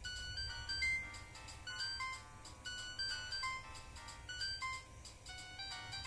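Nokia 1265 mobile phone playing a polyphonic ringtone through its small loudspeaker: a synthesized melody of short, high, clean notes stepping up and down, several notes a second.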